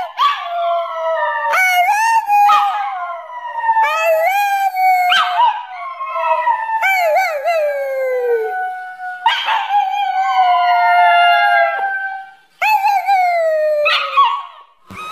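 A Siberian husky howling: a string of about seven long, wavering calls that bend up and down in pitch, with short breaks between them. One call near the middle slides steadily down.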